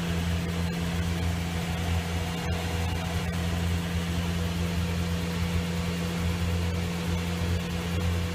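Mitsubishi Lancer Evolution V's turbocharged 2.0-litre four-cylinder engine idling with a steady, even hum, its exhaust piped away outside.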